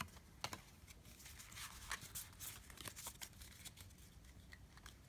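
Faint, scattered light clicks and swishes of Pokémon trading cards being handled: cards slid out of a freshly opened booster pack and squared into a stack.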